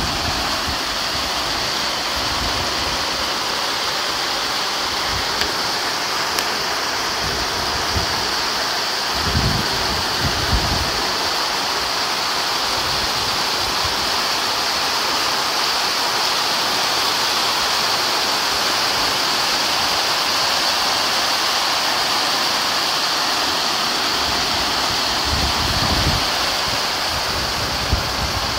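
Heavy rain pouring steadily onto paving and grass, a dense even hiss. A few brief low rumbles come through it, one about nine seconds in and one near the end.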